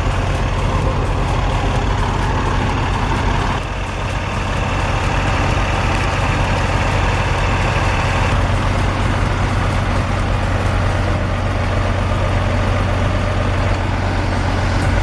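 Heavy logging truck's engine running steadily under load as it is driven up a slippery hill, a continuous low engine drone with a brief dip in loudness about four seconds in.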